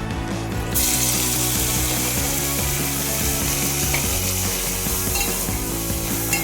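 Food sizzling in a hot pan, starting abruptly less than a second in and going on steadily, over background music.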